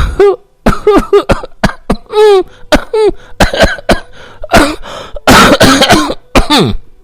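A man's voice coughing over and over in a rapid, sing-song string of about twenty short coughs. Many of them carry a pitch that slides, mostly falling, so the coughing sounds almost like a tune. A longer falling cough comes near the end.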